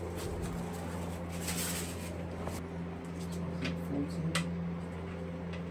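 Handling noise from working on a dismantled motorcycle: a brief rustle, then a few light clicks of tools or parts, over a steady low hum.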